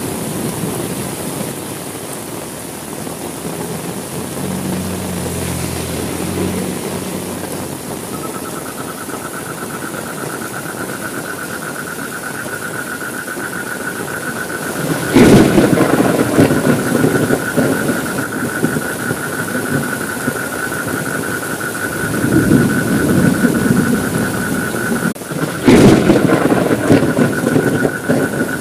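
Heavy rain falling steadily, broken by two sudden loud thunderclaps with rumbling tails, one about halfway through and one near the end. A steady high-pitched whine joins the rain about a third of the way in.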